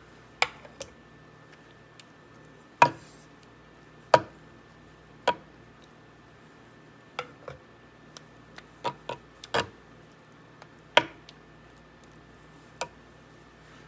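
Metal spoon clinking against a glass bowl and a baking dish while scooping and spreading thick sauce: about a dozen sharp clinks at irregular intervals, some ringing briefly.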